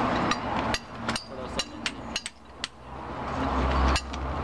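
Heavy steel tyre chain links clinking and knocking against each other and a steel bar as they are hooked and levered onto a giant tyre: an irregular series of about ten sharp metallic knocks. A low rumble comes in near the end.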